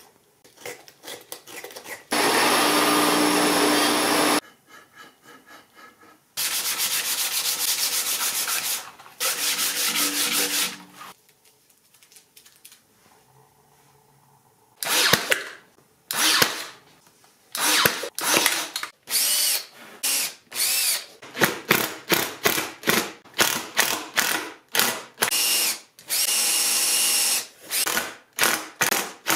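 Makita cordless drill running in several steady bursts of about two seconds each, boring into plywood with a countersink bit. In between comes a long run of short rubbing strokes on wood, about two a second.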